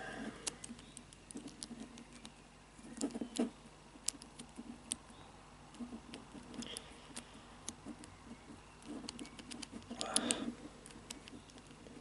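Faint clicking of the metal combination wheels on an Abus 3406C cable lock as fingers turn them detent by detent, feeling for the gates while decoding the combination. Scattered small ticks throughout, with two brief louder bursts of handling noise about 3 s and 10 s in.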